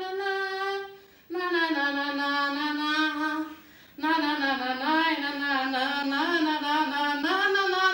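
A woman singing a wordless tune unaccompanied, in three long held phrases with short breaks about a second in and just under four seconds in.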